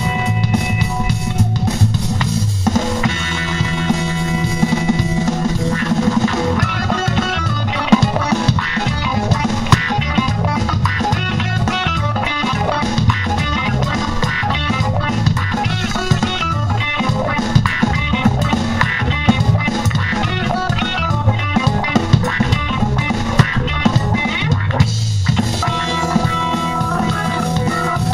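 A live funk fusion band plays an instrumental passage on guitar, bass guitar and drum kit, with steady low bass notes under a busy rhythm. Near the end comes a brief break before the next passage.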